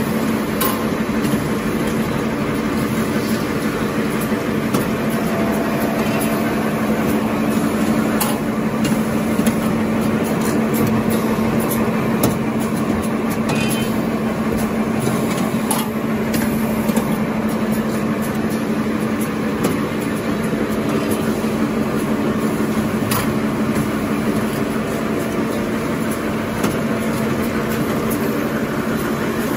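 Automatic glue-lamination napkin tissue production line running: a steady mechanical hum with short clicks scattered irregularly through it.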